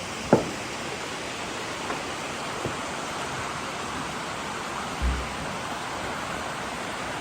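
Steady rush of flowing water, with a sharp click about a third of a second in and a short low thump about five seconds in.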